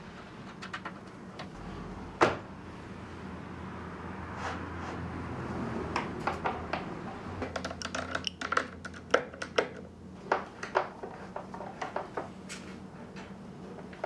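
Scattered light clicks and knocks of hand work, with one sharp knock about two seconds in and a quicker run of clicks in the second half, over a low steady hum.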